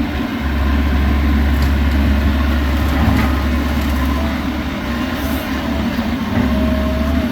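Bobcat E85 compact excavator's diesel engine running steadily under working load, with a whining tone that comes and goes in the second half and a few light knocks from demolition debris.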